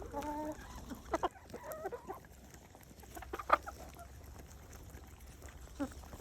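Chickens clucking while pecking at grated radish: a clucking call right at the start and another about two seconds in, with scattered sharp taps, the loudest about halfway through.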